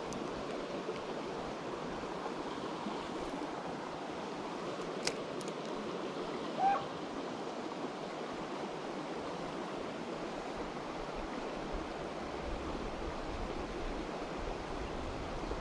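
Steady rush of a shallow creek running over rocks. About five seconds in there is a sharp click, and a short falling squeak comes about a second and a half later.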